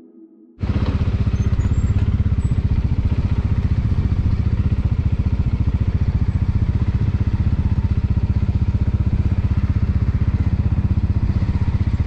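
Bajaj Dominar 400's single-cylinder engine running steadily with a rapid, even beat that holds an unchanging pace. It cuts in abruptly about half a second in.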